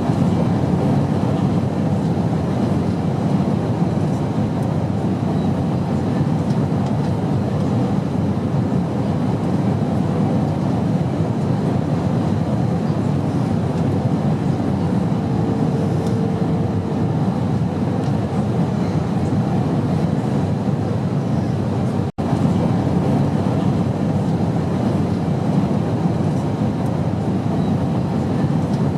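Airplane cabin noise in flight: a steady, loud, deep rush of engine and airflow noise. It drops out for an instant about three quarters of the way through.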